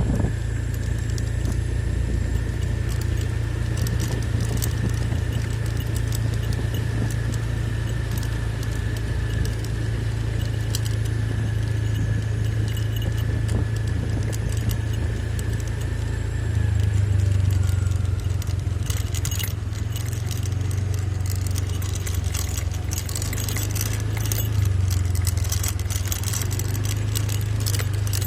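A vehicle engine running steadily while on the move, with a constant low hum and jingling, rattling metal clicks that become busier in the second half.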